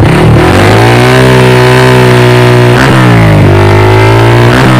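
Bajaj Pulsar 180 single-cylinder four-stroke engine revved through an aftermarket Akrapovic-branded slip-on silencer, loud. The engine climbs from idle and holds high, the revs fall and rise again about three seconds in, and once more near the end.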